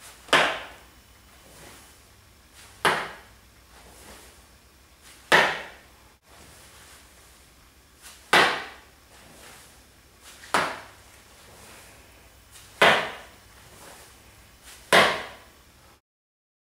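A sneaker-shod foot slapping down on a hard floor seven times, about every two and a half seconds. Each slap comes as one leg, lifted with a high knee, is dropped so the foot lands beside the other.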